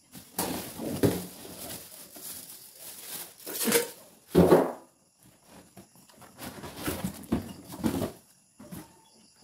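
Cardboard carton and plastic wrapping rustling and crinkling as the parts of a stainless steel chafing dish are lifted out by hand, in irregular bursts, with a louder bump and scrape about halfway through.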